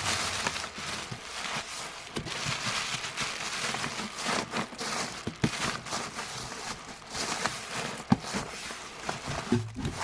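Rustling and crinkling of packing materials being handled, with scattered light clicks and knocks.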